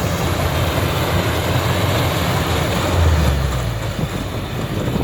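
Rice combine harvester running steadily close by, its engine and machinery making a dense mechanical noise that swells deeper and louder for a moment about three seconds in.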